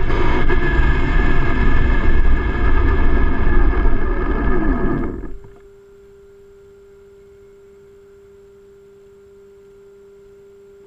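Traxxas E-Revo electric RC monster truck driving, its motor whine rising and falling with the throttle over tyre and drivetrain noise, for about five seconds. Then it stops abruptly, leaving only a faint steady hum-tone.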